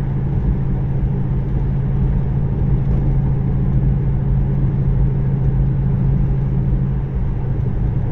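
A car cruising at a steady speed, heard from inside the cabin: a steady low drone from its overhead-cam V8 engine, with road noise.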